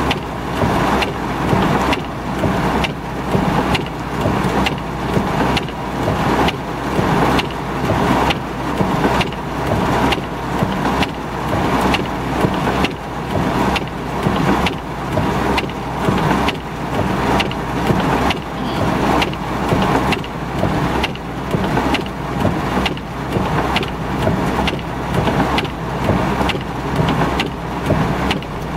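Heavy rain pelting a car, with the windshield wipers sweeping at a steady beat of about one stroke a second. A low steady hum runs underneath.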